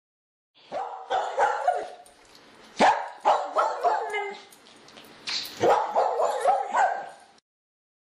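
A dog yipping and barking in three short bursts.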